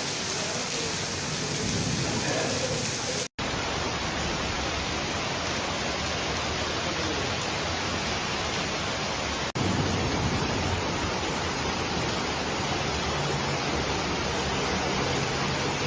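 Heavy rain pouring down in a steady hiss, cut off for an instant about three seconds in and again about nine and a half seconds in, a little louder after the second break.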